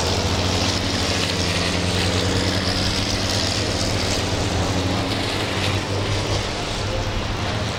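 Racing trucks' turbo-diesel engines running hard at speed, a loud, steady engine drone with a low hum under it.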